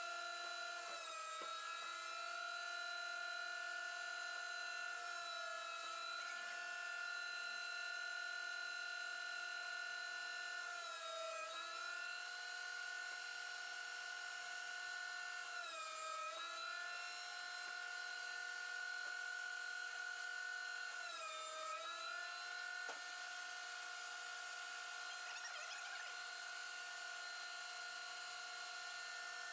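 Thickness planer's motor running with a steady high whine, its pitch sagging briefly a few times.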